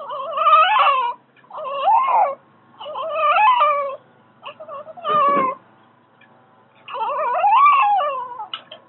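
Newborn baby crying: about five wavering wails, each roughly a second long, with short pauses for breath between them.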